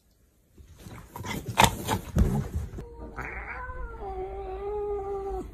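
A calico cat gives one long, drawn-out yowl that dips slightly in pitch and then holds steady before stopping abruptly: a hungry cat demanding food. It is preceded by a couple of seconds of rustling and knocks.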